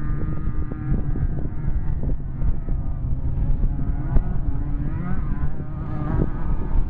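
Off-road race vehicle engines running hard over rough desert ground, the pitch rising and falling with the throttle, with scattered knocks and one sharp knock about four seconds in.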